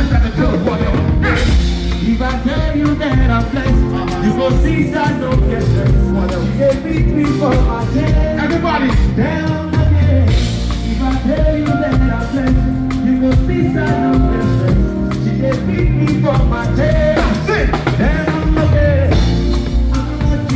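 Live band playing an upbeat groove, with drum kit hits over the bass and other instruments, and some singing.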